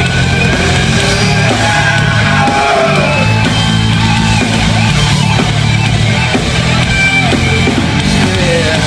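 Live rock band playing an instrumental passage of a song, with guitar to the fore over bass and drums.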